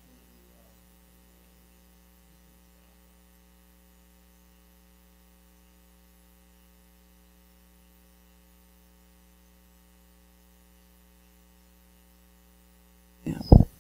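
Steady electrical mains hum from the sound system, a low buzz made of several even, unchanging tones with no speech over it. Near the end a single loud thump cuts in briefly.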